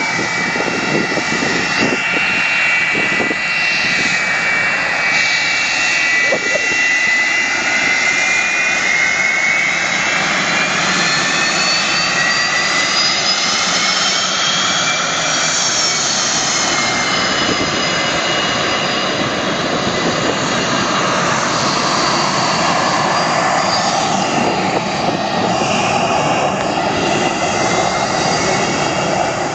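Twin rear-engined jet airliner's turbofans running as it taxis past and turns to line up for takeoff: a loud, steady roar with a whine that climbs in pitch toward the middle and then falls away again.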